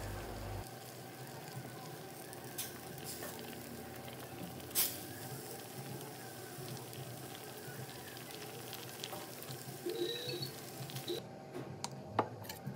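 Fish curry in coconut milk simmering in a stainless steel wok, bubbling and sizzling, with a metal ladle stirring and knocking on the pan now and then, sharpest about five seconds in. Near the end a ladle clinks once on a plate.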